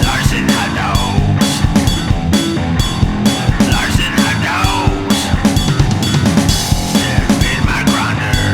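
Rock band music with a busy drum kit beat of snare and bass drum.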